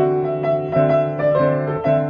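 Background music: piano or electric piano playing a gentle repeating chord pattern.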